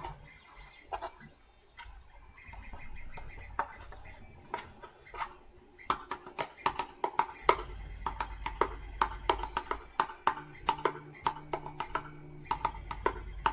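Background music: a quieter opening, then from about six seconds in a steady percussive beat over a low bass line.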